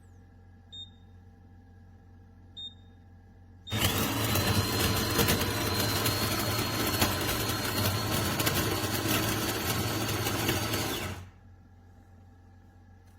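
De'Longhi Rivelia automatic espresso machine beeping twice, then running loudly for about seven and a half seconds with a steady high whine before stopping abruptly.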